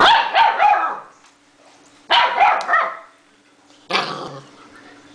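Six-week-old puppy barking and growling in three short bursts of quick, high barks, about two seconds apart.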